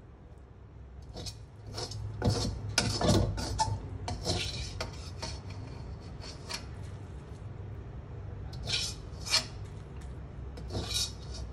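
Metal slotted spatula scraping fried flat rice noodles across a steel wok and lifting them into a bowl: a quick run of scrapes about two seconds in, lighter scrapes after, and a few more near the end.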